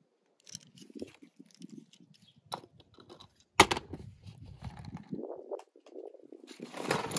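Faint handling noise of hollow plastic play balls and small die-cast toy cars: scattered rustles and light clicks, with one sharp click about three and a half seconds in and a steadier rustling noise near the end.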